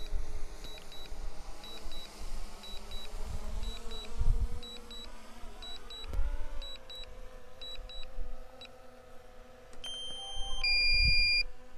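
Low-battery warning from a DJI drone controller: short high double beeps about once a second, over the hum of the DJI Mini 3 Pro's propellers as it descends to land. Near the end a longer two-note electronic tone sounds, and low buffeting comes and goes on the microphone.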